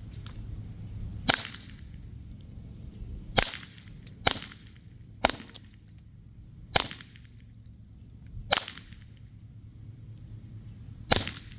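Valken M17 .68-calibre paintball pistol on high-pressure air at 850 PSI firing HP68 rounds: seven sharp single shots, spaced about one to two and a half seconds apart.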